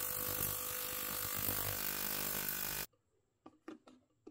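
Ya Xun ultrasonic cleaner running with water in its stainless tank, giving a steady buzzing hum with a hiss over it. The sound cuts off abruptly about three seconds in, leaving near silence with a few faint ticks.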